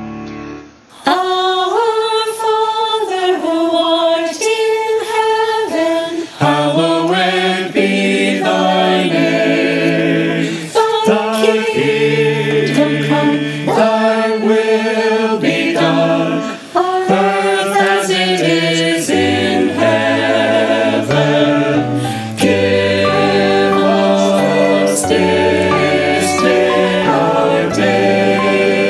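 Choir singing a cappella in several-part harmony, with sustained notes changing about once a second. The voices come in about a second in, just as a piano dies away.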